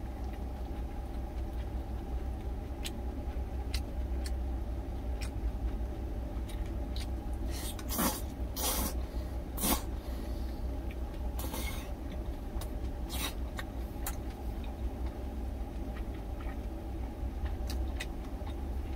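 Noodles slurped in several loud bursts, about eight to thirteen seconds in, over the steady low hum of an idling truck engine, with scattered light clicks.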